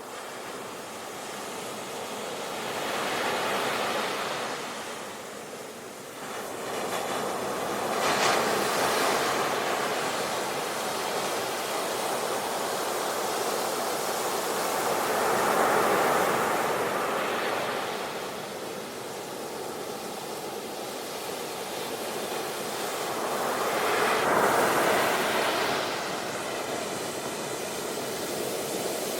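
Ocean waves breaking on a shore, a steady rush of surf that swells with each wave, loudest about 8, 16 and 24 seconds in.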